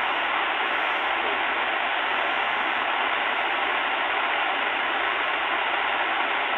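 Shortwave static hiss from a Sangean ATS-909X2 portable receiver tuned to 5450 kHz upper sideband, with no voice coming through. A faint steady whistle sits in the noise.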